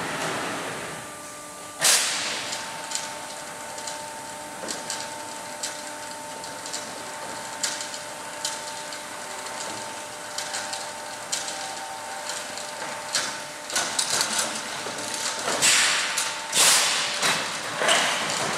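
Wooden crate stacking machine at work: a motor hums steadily while wooden crates knock and clatter as they are lifted, stacked and moved along the conveyor. There is a loud bang about two seconds in and a busier run of bangs and clatter near the end.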